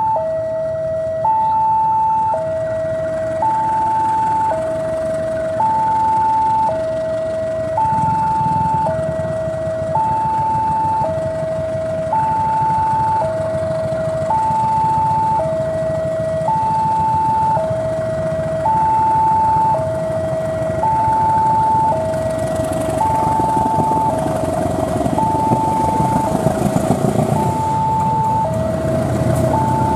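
Railway level crossing warning alarm sounding an alternating two-tone electronic chime, the high and low tones swapping about once a second. Under it an approaching diesel locomotive's engine rumble grows from about eight seconds in, with wheel clatter near the end.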